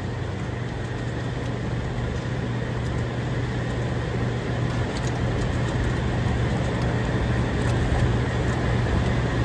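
Steady low mechanical hum of running machinery, slowly getting a little louder, with a few faint clicks.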